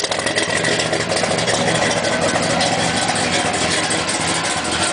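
1970 Chevelle SS's L78 396 big-block V8, a 375 hp solid-lifter motor, idling steadily.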